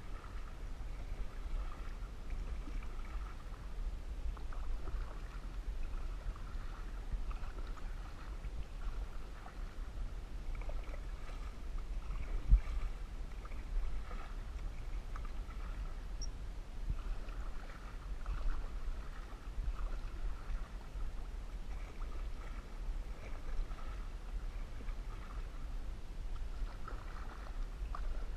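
Canoe paddle strokes swishing through lake water in a steady rhythm over a low rumble, with a single sharp thump about halfway through.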